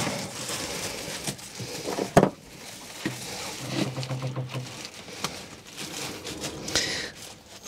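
Plastic sandwich bag crinkling and rustling as a gloved hand works a diesel filter's glass bowl and cartridge down into it, with small clicks and one sharp knock about two seconds in.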